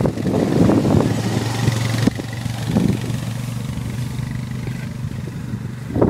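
Honda quad bike engine running steadily as it drives past towing a weed licker, with wind buffeting the microphone. About two seconds in the sound drops to a quieter, even drone as the quad moves away.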